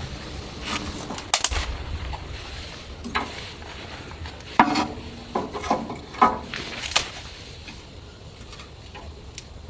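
Irregular knocks and clatters of objects being handled: about a dozen sharp hits spread unevenly, the loudest at about one and a half, four and a half and seven seconds in, over a low rumble in the first two seconds.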